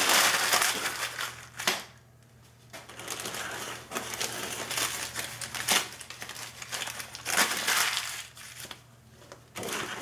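Crinkling and rustling of white packing paper as it is unwrapped from a plant, in irregular bursts with a short lull about two seconds in.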